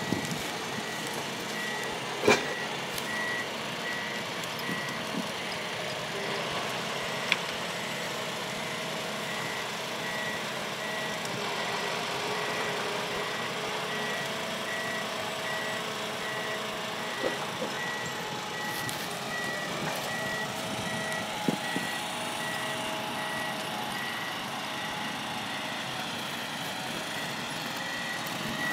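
Ponsse Elephant King forwarder's engine running steadily as the machine drives, with its reversing alarm beeping in a steady repeating pattern. A few sharp knocks come through, the loudest about two seconds in.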